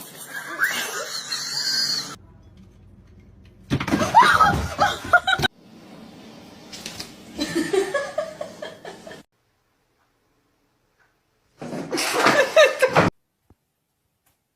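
People laughing in several short bursts that start and stop abruptly, with a silent gap of about two seconds in the second half.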